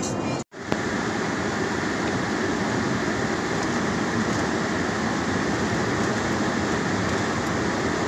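Steady road and tyre noise heard from inside a moving car on a wet road, broken by a brief dropout about half a second in.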